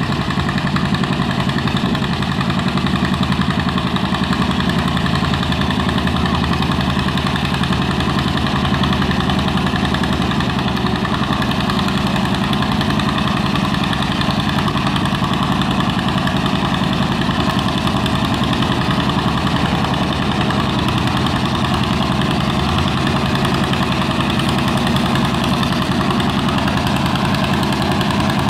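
Antique John Deere two-cylinder tractor engine running steadily under load as it pulls a weight-transfer sled, with an even, rapid firing beat.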